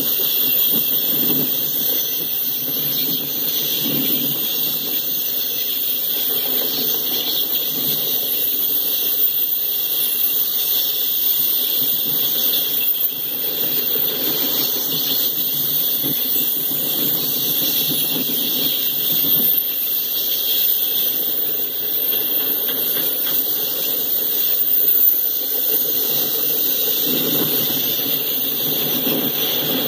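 Steel wheels of loaded freight hopper cars rolling over the rails: a steady rolling noise with a high hiss and squeal from the wheels.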